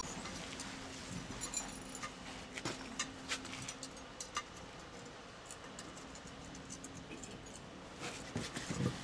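Steel pry bar clinking and scraping against a granite curbstone and grit as the stone is levered into position: scattered light metallic knocks, busier in the first few seconds and again near the end.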